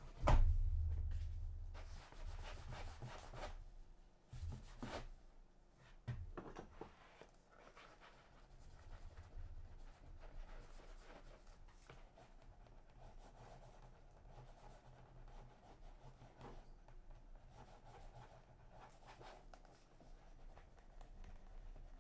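A heavy thump on a work surface at the start, then several scratchy rubbing strokes over the next few seconds, settling into faint steady rubbing: leather being worked by hand.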